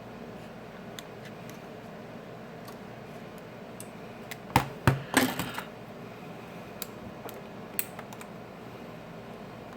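Light clicks and taps of small repair tools against a smartphone's frame and internal parts. A cluster of sharper clicks and a short scraping rattle comes about halfway through.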